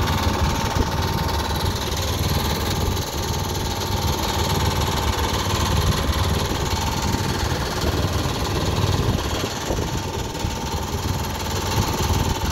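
Sailboat's engine running steadily as the boat motors with its sails furled: an even low rumble with a faint steady whine above it.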